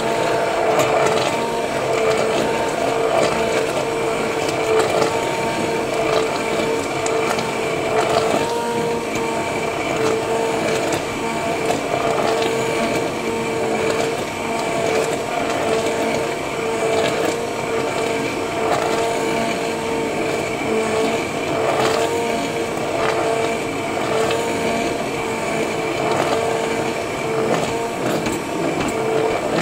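Hand-held immersion blender running steadily in a stainless-steel pot, a constant motor whine with occasional light knocks of the blender against the pot.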